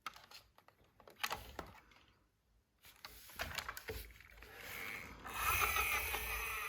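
Hands handling toys and packaging: scattered clicks and short rubbing sounds, then a rougher, steadier scraping noise that grows louder after about five seconds.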